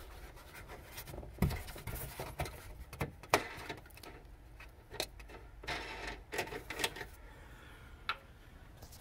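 Wing nuts being unscrewed by hand from a car tail light's threaded mounting studs: scattered small clicks, scrapes and rubbing, with a sharper knock about three seconds in.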